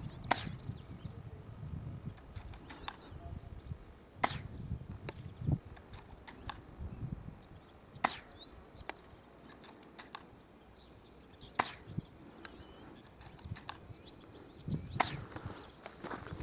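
Bolt-action airsoft sniper rifle firing five single sharp shots, about one every three and a half to four seconds, with smaller clicks in between.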